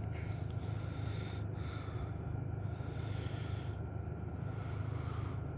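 A man breathing close to the phone's microphone, a few slow breaths in a row, over a steady low rumble inside a car.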